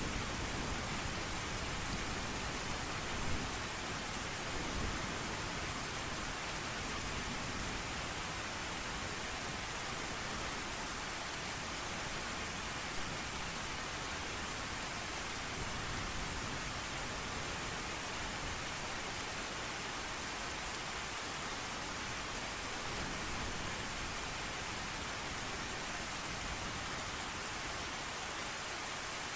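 Steady heavy rain, an even wash of noise, with a few brief louder spots about three, five and thirteen seconds in.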